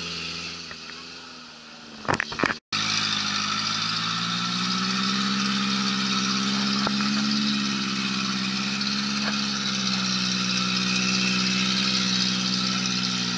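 Suzuki Sidekick off-roader's engine running steadily under load as it crawls through deep clay mud. The sound breaks off briefly, after a few clicks, about two and a half seconds in.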